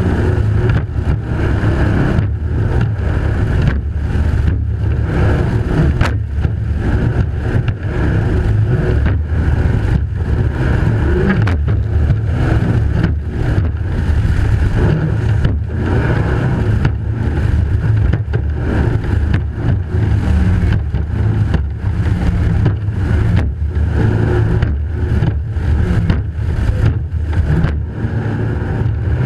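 Racing powerboat's engines running hard at speed, mixed with rushing wind and water noise. The higher part of the sound keeps dipping for a moment at uneven intervals.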